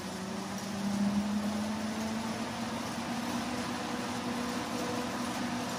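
A motorised LEGO Technic Volvo A60H articulated dump truck running on a treadmill belt: a steady low motor-and-gear whine over the hiss of the moving belt, getting louder about a second in and creeping slightly higher in pitch as the speed rises.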